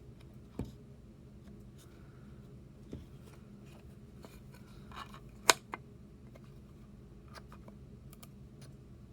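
Wooden puzzle box being handled: scattered light clicks and knocks of its wooden pieces as they are slid and tested, with one sharp, louder click about five and a half seconds in.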